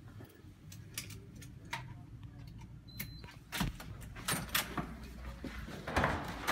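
Steps and small clicks, then a short high electronic beep from a card-reader door lock about three seconds in. After that come the knocks and clunks of a door handle and latch being worked as the door is opened.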